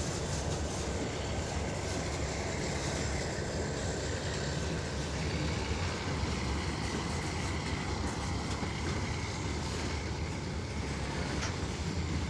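A freight train's covered hopper wagons rolling past on the track, giving a steady rumble of wheels on rails.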